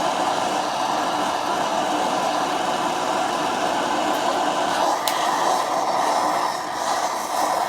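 Gas torch flame running with a steady roar, heating a Loctite-seized steel fire hose reel swivel joint to break the thread-locker's grip. A single sharp click about five seconds in.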